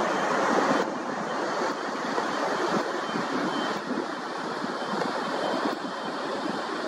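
Airbus A321neo airliner with Pratt & Whitney geared turbofan engines passing overhead: a steady, broad rush of jet noise.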